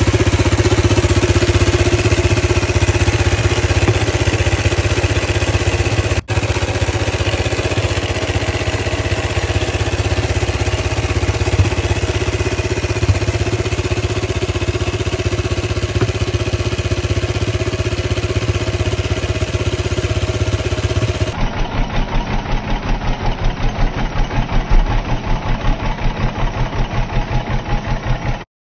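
1934 Harley-Davidson CAC speedway racer's single-cylinder alcohol engine running steadily. Near the end, after a cut, it runs slower, each firing stroke heard separately.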